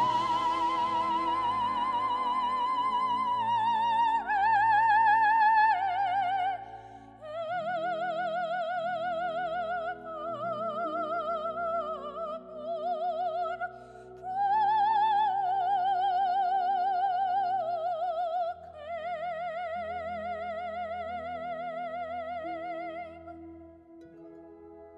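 A Christmas carol sung by a solo operatic voice in slow, long-held phrases with wide vibrato over a soft accompaniment. The music fades down near the end.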